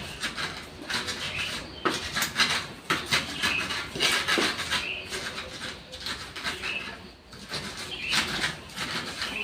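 Scattered knocks and clatter, with bird calls in the background.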